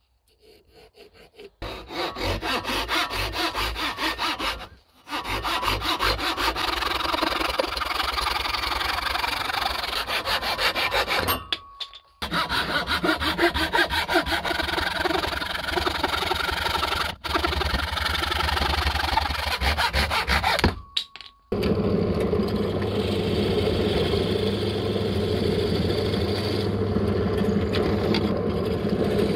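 Hand saw cutting through a block of zebrawood held in a vise, with quick back-and-forth strokes and a few brief breaks. About two-thirds of the way through, a bench drill press takes over, its motor running steadily as the bit drills into the wood.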